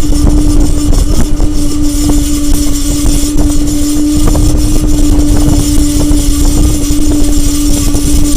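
Lectric e-bike motor giving off a steady, high screech, an abnormal noise from the motor, over a low rumble. The tone sets in sharply at the start and drops slightly in pitch near the end.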